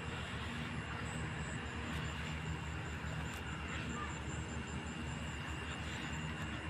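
Steady rain falling on grass and leaves, an even hiss with a low rumble under it, and a faint steady high tone above it.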